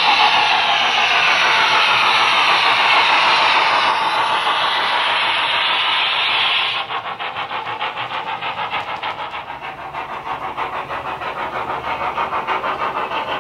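Model pannier tank locomotive's DCC sound decoder playing a loud steady steam hiss, which cuts off abruptly about seven seconds in. A fast, even, rhythmic beat of the model train running follows.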